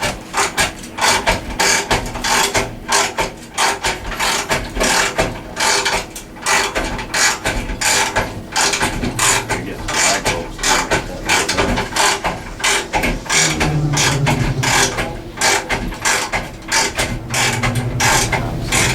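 A ratchet mechanism clicking in quick repeated strokes, a few bursts a second, with a low hum coming in briefly about two-thirds through and again near the end.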